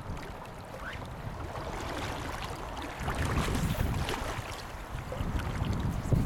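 Wind buffeting the camera microphone in gusts over the rush of river current, the buffeting louder from about three seconds in.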